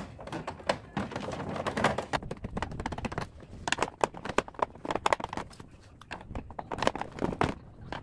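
Hand screwdriver working screws out of the plastic base of an LG dehumidifier, with irregular clicks, taps and knocks of the tool and gloved hands on the hollow plastic housing.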